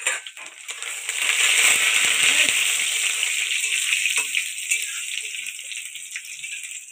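Chopped garlic and whole spices sizzling in hot oil in an aluminium kadai. The sizzle swells about a second in and slowly eases off, with a few scrapes and taps of a metal spatula stirring.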